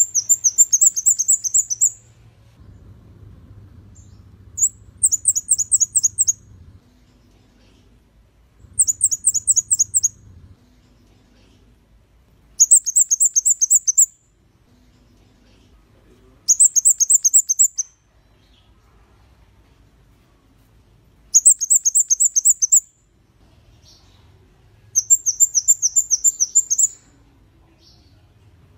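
Flowerpecker singing: seven short bursts, each a rapid string of thin, very high, downward-slurred notes, repeated about every four seconds.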